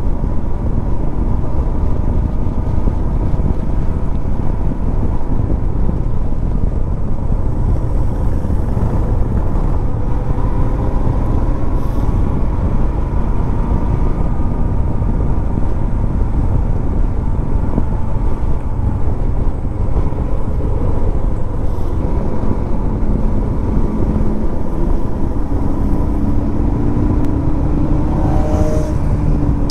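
Wind rushing over the microphone on a moving motorcycle, with the Royal Enfield Himalayan's single-cylinder engine running steadily underneath as it rides along.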